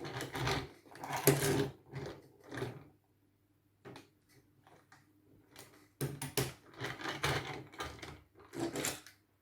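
Hard plastic Zord toys being handled and moved on a surface: irregular clattering and knocking in two spells, with a quiet pause of about three seconds between them.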